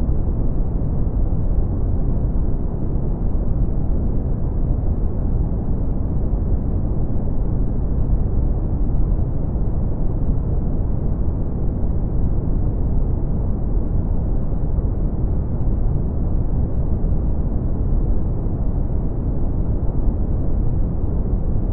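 Steady brown noise: a deep, even hiss with most of its weight in the low end and little treble, unchanging throughout.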